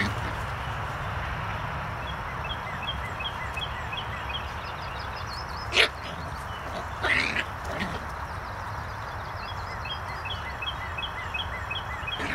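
Young puppies at play giving a sharp yip about six seconds in and a short cluster of yips a second later, over steady low background noise. A run of quick, evenly spaced high chirps sounds twice in the background.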